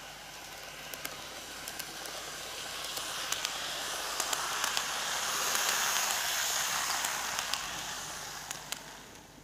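Greenmax N gauge Tobu 6050 series model train running on TOMIX track: the hissing whirr of its motor and wheels on the rails grows louder as it approaches, peaks about six seconds in as it passes, then fades, with scattered sharp clicks throughout.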